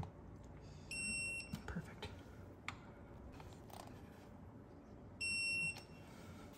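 Snap-on digital torque wrench beeping twice, about four seconds apart, each a steady high beep lasting about half a second, signalling that the set torque of 25 N·m has been reached on the clutch pressure plate bolts. Faint clicks and taps from the wrench on the bolts come between the beeps.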